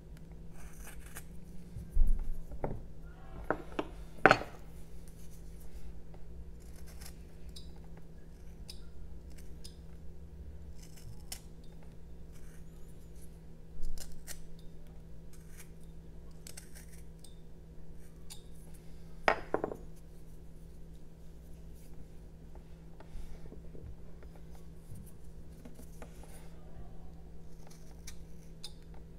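Carving knife whittling a jelutong block by hand: a run of small, crisp slicing and scraping cuts. A few sharper, louder clicks come about 2 and 4 seconds in, and again near 14 and 19 seconds.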